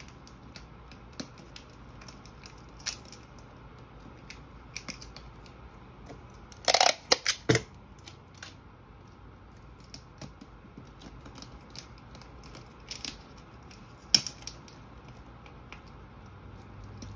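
Small handling sounds of toiletry bottles and tape being arranged in a plastic basket: scattered light clicks and taps, a short run of louder sharp snaps about seven seconds in, and one more about fourteen seconds in.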